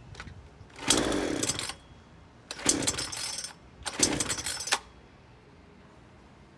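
Craftsman S180 42cc two-stroke chainsaw being pull-started: three pulls on the recoil starter, each about a second long, the engine turning over without catching.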